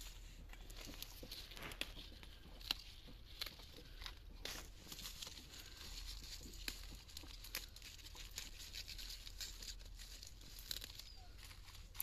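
Spinach leaves being picked by hand: faint, irregular snaps of stems breaking and rustling of leaves and the crinkly plastic bags they grow in.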